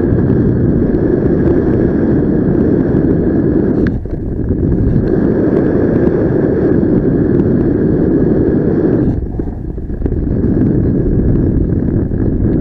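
Wind noise from airflow rushing over the microphone of a paraglider in flight: a loud, steady, low rush that eases briefly about four seconds in and again about nine seconds in.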